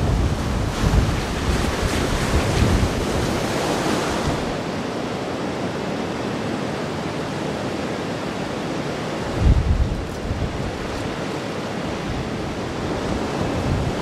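Storm-surge waves from Lake Erie crashing over a shoreline wall, with strong wind buffeting the microphone. About four seconds in it changes to a steadier rush of lake water flooding across a road, with one gust hitting the microphone about halfway through.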